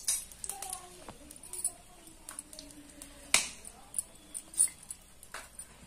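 Scattered sharp pops and crackles from a tiny wood fire frying a patty in hot oil in a miniature kadhai, the loudest pop about three seconds in.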